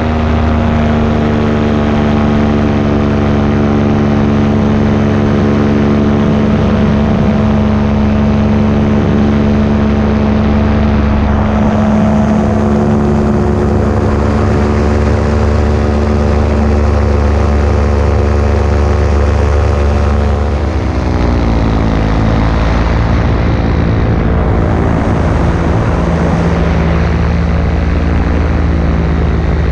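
Paramotor engine and propeller running steadily under power, with a strong buzzing hum. About twenty seconds in the pitch drops and the engine settles to lower revs.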